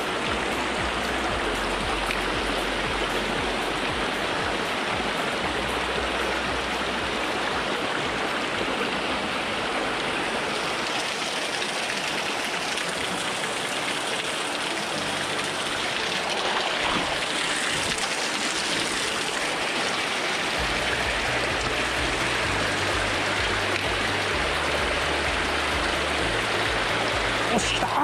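Mountain stream running over rocks and small cascades: a steady rushing of water.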